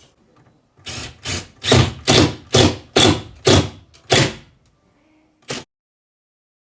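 A run of about eight sharp knocks, roughly two a second, then one more after a short gap, and the sound cuts off suddenly.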